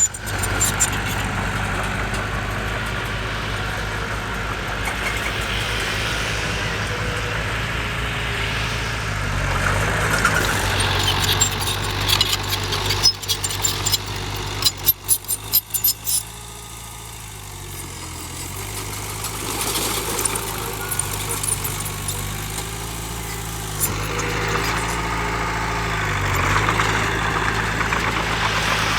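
Heavy diesel machinery, a dump truck and bulldozer, running steadily with its engine pitch shifting up and down, and a run of sharp clattering knocks about halfway through.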